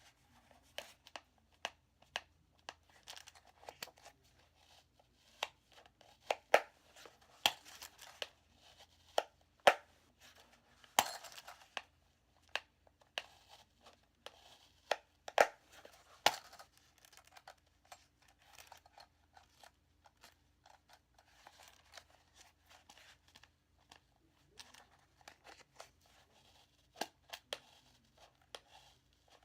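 Steel handcuffs and their keys being handled and pushed into a tight carry case: irregular sharp clicks and metal clinks mixed with rustling, busiest in the first half and sparser later.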